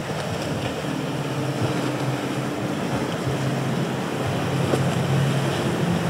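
Midnight Express 43 powerboat's outboard engines droning steadily as it runs close by through choppy water, with the rush of its wake and breaking waves. The engine sound grows louder in the second half as the boat draws nearer.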